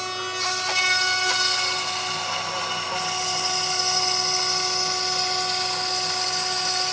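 Desktop CNC router running, its spindle giving a steady high whine as the bit mills along the edge of a taped-down white sheet. The cutting hiss swells about half a second in and again around three seconds in.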